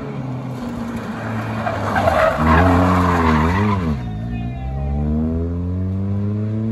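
Rally car engines at full effort through a hairpin: a burst of tyre noise, then the engine revving up and down as the car brakes and turns. After that, a car accelerates away with its engine pitch climbing steadily.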